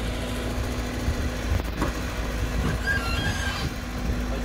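Excavator's diesel engine running steadily, with a few short knocks and faint squeaks from the machine working.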